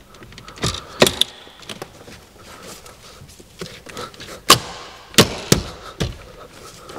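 Plastic dashboard air vents and trim being pressed and snapped back into their clips, giving a series of sharp clicks and knocks. The loudest comes about four and a half seconds in, with several more close together just after.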